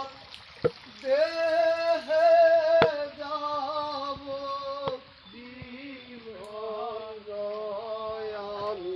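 A singing voice holding long, slightly wavering notes in two phrases, with a few sharp clicks.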